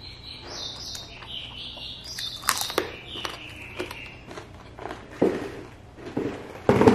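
Close-miked mukbang eating: a man chewing and sucking up rice, with high squeaky sucking sounds in the first half, then sharp lip smacks and clicks. The loudest smack comes near the end.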